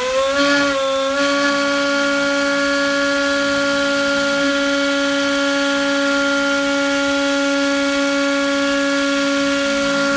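FPV Model MC2204 2300kv brushless mini-quad motor spinning a 5x4 Gemfan propeller at steady half throttle on 3S: a steady motor whine and propeller hum. The pitch finishes rising and settles about half a second in.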